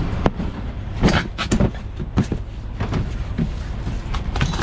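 Steady low rumble of a vehicle on the move, heard from inside the cab, with several sharp knocks and rattles through it.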